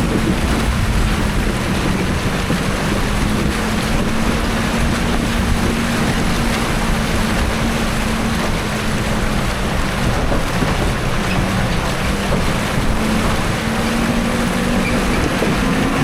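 Fuso Canter 4x4 truck's diesel engine running steadily in low gear while fording a river, with water rushing and splashing around the truck. The engine note rises near the end.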